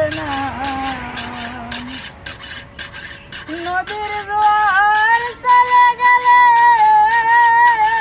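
Steady back-and-forth rasping of a hand file on metal, about three to four strokes a second. A man sings long held, wavering notes of a Bengali folk song over it, loudest in the second half.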